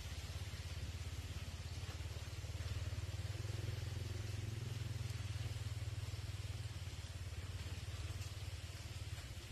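Motorbike engine running steadily at low speed, a low rumble that grows a little louder partway through and then eases.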